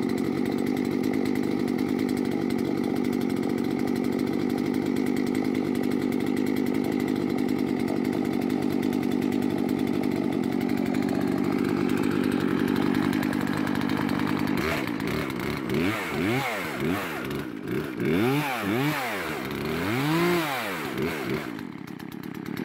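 A steady motor drone for about the first 14 seconds. Then the recoil starter of a Poulan Pro PL3314 33cc two-stroke chainsaw is pulled about six times, each pull a whir that rises and falls. The cold saw does not catch: it is hard to start when cold.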